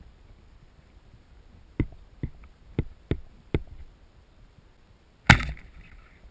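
Band-powered speargun fired underwater: one sharp, loud crack about five seconds in, with a short fading tail as the spear and shooting line run out. Before it, five sharp clicks come in quick succession.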